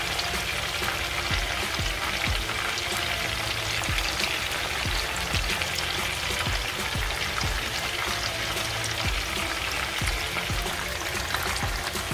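Chicken wings shallow-frying in hot vegetable oil in a pan: a steady sizzle with many small crackles and pops from the bubbling oil.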